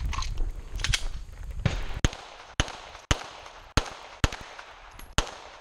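Pistol shots fired at a steady pace, about two a second, six sharp cracks starting about two seconds in, after a low rumble.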